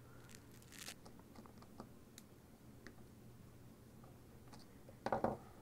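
Faint clicks and ticks of small parts being handled as a stripped wire is worked into a slide switch's terminal, with a short scrape about a second in and a louder knock about five seconds in.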